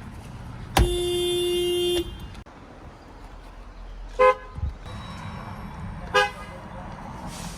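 A car horn sounding one steady held note for just over a second, followed later by two short, quick toots of a higher-pitched horn about two seconds apart.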